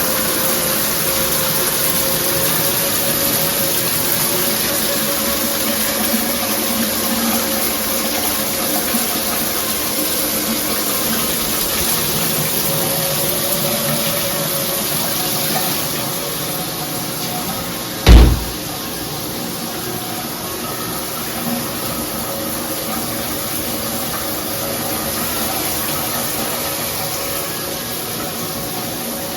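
Shower head spraying water steadily, with a faint steady tone underneath. One sharp, loud knock a little past halfway.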